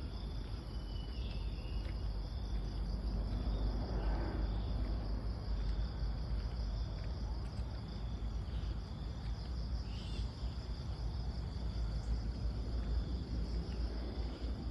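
Crickets and other insects chirring in a steady, finely pulsing drone, over a constant low rumble of outdoor noise, with a few brief bird chirps.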